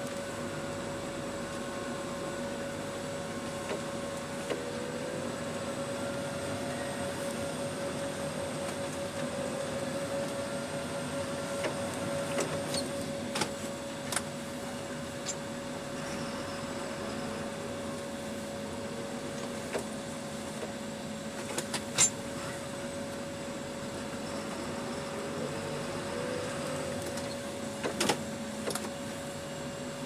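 Tractor engine running steadily as heard inside the cab while it pushes a front snow plough blade, a constant drone with a steady whine. A few sharp clicks and knocks break in, the loudest about two-thirds of the way through.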